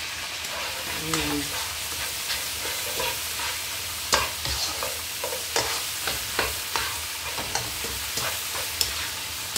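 Red spice paste sizzling as it fries in a wok, stirred with a spatula. Irregular clicks and scrapes of the spatula against the pan sound over a steady frying hiss.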